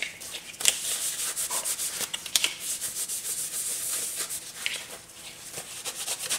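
Paper towel rubbing back and forth over a black tool in quick strokes, wiping it clean of oil and contaminants before epoxy is applied.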